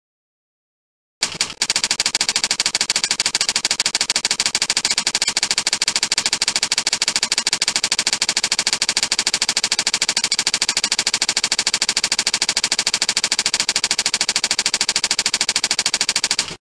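Typing sound effect: a fast, even run of key clicks that keeps pace with on-screen text being typed out letter by letter. It starts about a second in and stops just before the end.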